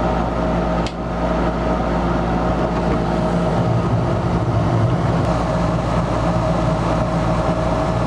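Gas furnace's induced-draft exhaust fan running with a steady hum. About a second in there is a single click as the gas valve opens over the red-hot glow igniter, and a few seconds in the five burners light and add a low rumble under the fan.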